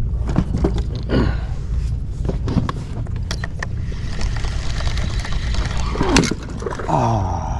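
Wind rumbling on the microphone, with scattered clicks and knocks from a spinning rod and reel being handled in an inflatable boat.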